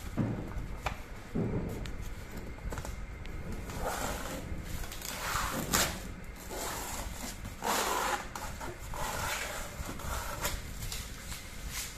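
Styrofoam packing tray and plastic wrapping being handled by hand: irregular rustling and scraping with a few light knocks and clicks.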